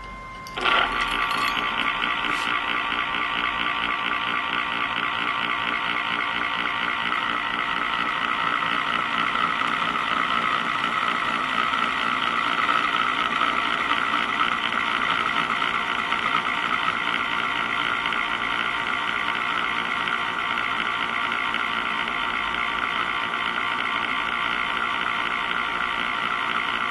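A metal spinning top kept turning on a wooden plate by a motor-driven ring of magnets beneath it. It gives a steady whirring rattle that starts abruptly about a second in and holds even throughout.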